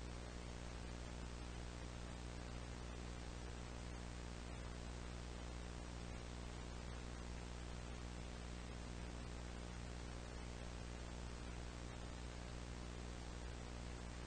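Steady static hiss over a low electrical hum with a stack of overtones, unchanging throughout, like the noise of an old VHS tape recording.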